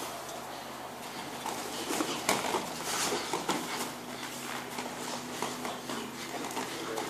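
Bare feet slapping and scuffing on foam mats as two grapplers clinch and shuffle, with a cluster of sharper slaps and thuds about two to three and a half seconds in.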